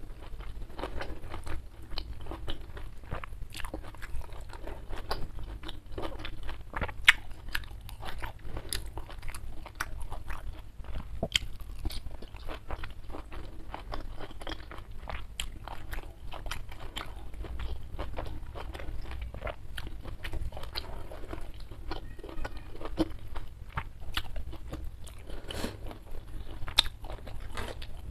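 A person chewing a mouthful of food close to a clip-on microphone, with a dense run of short, sharp clicks and crunches from the chewing.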